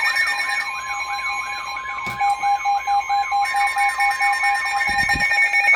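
Emergency Alert System alert tones from an EAS encoder/decoder: a steady alarm tone with a rapid rising-and-falling warble repeating about three to four times a second, sounding ahead of the spoken severe thunderstorm warning.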